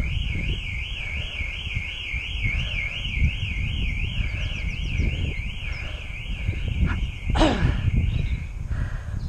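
Electronic alarm sounding a continuous warble that swings up and down in pitch about three times a second, then stops shortly before the end. A steady low rumble of wind on the microphone from riding runs underneath, and a brief sharp sound falling in pitch comes about seven seconds in.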